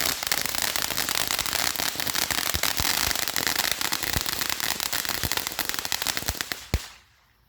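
TNT consumer firework going off: a dense crackle with many sharp pops. It fades out with a last pop about seven seconds in, then stops.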